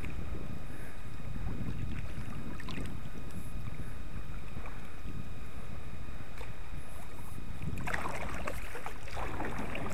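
Steady low wind rumble on a body-worn camera's microphone, out on open river water in a small kayak, with a short brighter hiss about eight seconds in.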